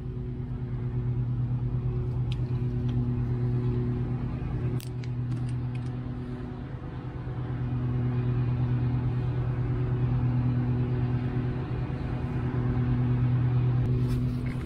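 A low, steady engine drone with a hum and overtones, slowly swelling and fading in loudness, with a few light clicks from brake caliper parts being handled in the first few seconds.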